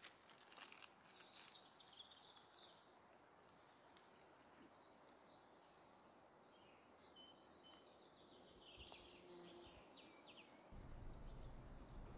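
Near silence with faint, scattered bird chirps and trills; a faint low rumble comes in near the end.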